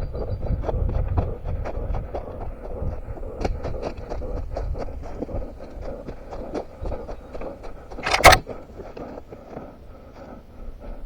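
A runner's footsteps on rough ground at about three strides a second, with a brief loud scrape or brushing sound about eight seconds in.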